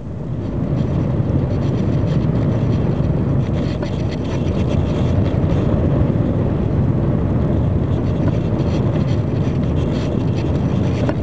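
Steady low wind rush over the model airplane's onboard microphone as it glides down with its motor shut off.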